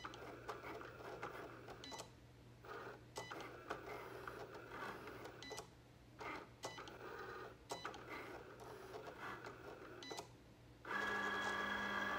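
Cricut electronic cutting machine at work: its motors whir in short bursts with brief pauses as the tool carriage and mat shift. Near the end a louder, steady whir sets in as the carriage travels across the mat.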